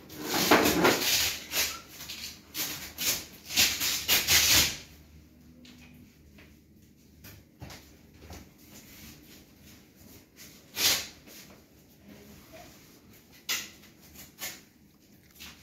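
Rustling and rubbing of a pop-up display's fabric cover as it is pulled and worked into place at its bottom edge: a run of loud, rushing strokes over the first five seconds, then a few short rustles later on.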